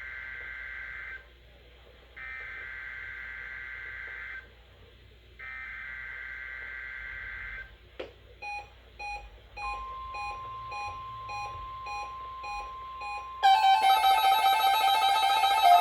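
NOAA Weather Radio SAME header: three screeching data bursts, each about two seconds long. A click follows, then a beep repeating about twice a second, joined about a second later by the steady 1050 Hz warning alarm tone of the weekly test. Near the end the tones give way to louder guitar music.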